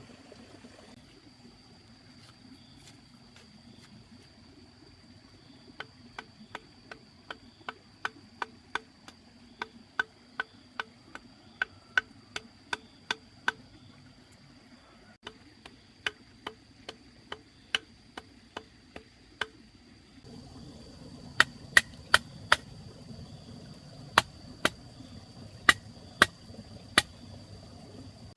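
Sharp chopping blows of a hand tool, a run of about two a second, then slower scattered blows and, after a pause, a few louder ones. A thin, steady high-pitched tone sounds throughout.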